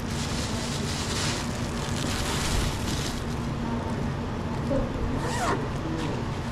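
Red insulated nylon delivery bag being handled and opened: fabric rustling for the first few seconds, then a short zip-like rasp a little after five seconds in. A steady low hum runs underneath.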